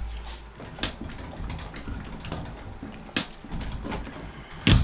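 A few scattered knocks and clicks of floor hatch panels being handled and stood on, with the loudest thud near the end.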